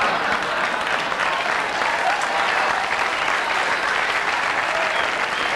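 Live audience applauding steadily, a dense clatter of many hands clapping.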